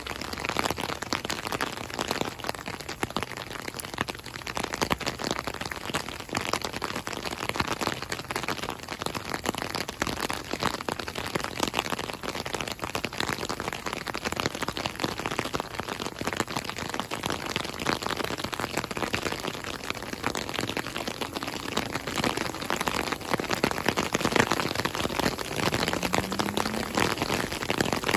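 Steady rain, with dense drops pattering close to the microphone.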